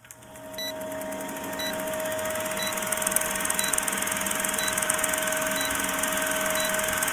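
Intro sound effect of an old film running: a steady hiss and whir with a constant hum, fading in over the first couple of seconds, with a short faint high pip about once a second.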